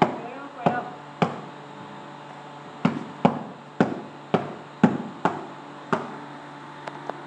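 Boxes knocking and thudding against the stack as they are handed up and packed into a truck's cargo bay, about a dozen sharp knocks at uneven intervals, each with a short echo.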